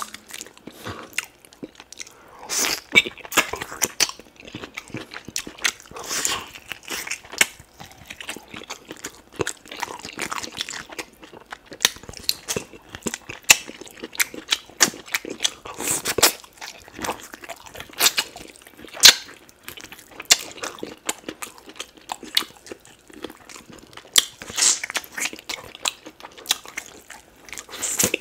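Close-up eating sounds of oxtail pepper soup: wet chewing and biting as meat is pulled from the oxtail bones, with many sharp mouth clicks and smacks and short bursts of sucking.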